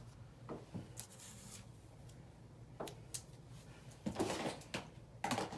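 Cardboard product packaging being handled: a few light taps and knocks, then rustling and scraping from about four seconds in as the Smart Keyboard is taken out of its box.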